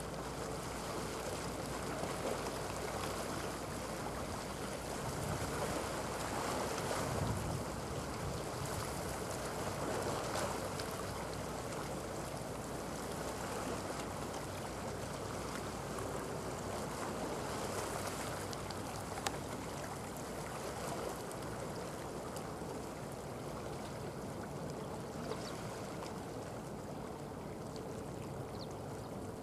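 Steady outdoor wash of wind and water at the shoreline, with a faint steady hum of a distant boat engine underneath and a few light clicks.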